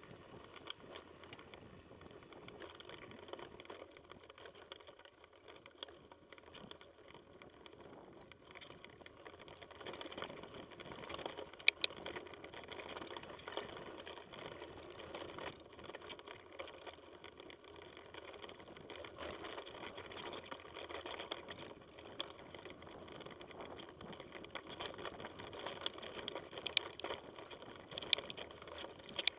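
Mountain bike riding over a dirt singletrack: a continuous rattle of tyres on loose ground and the bike's chain and frame. A few sharp knocks stand out, one about twelve seconds in and two near the end, where the trail turns rough and stony.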